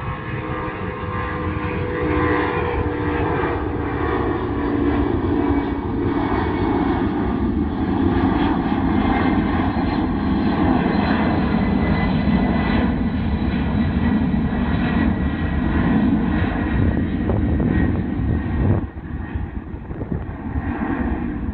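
Boeing 767-231's twin Pratt & Whitney JT9D turbofans at takeoff power: a loud, steady roar with tones that slowly fall in pitch as the jet goes by. The roar drops off sharply near the end.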